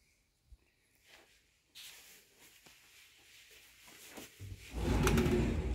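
A sliding closet door being slid open on its track, one noisy slide lasting about a second and a half near the end.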